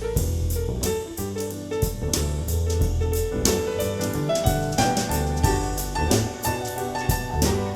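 Instrumental soul jazz: piano and keyboard chords over a bass line and a drum kit with steady beats, played back through an in-ear monitor for a sound demo.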